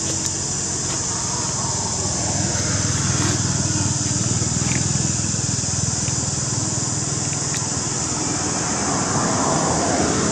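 A motor vehicle's engine running steadily, a low drone that swells a little near the end, over a steady high hiss.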